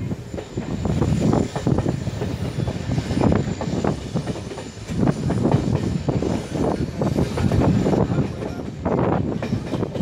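Passenger train coaches running along the track, wheels clattering unevenly over the rails with a constant rush of wind and rolling noise, heard from an open coach window.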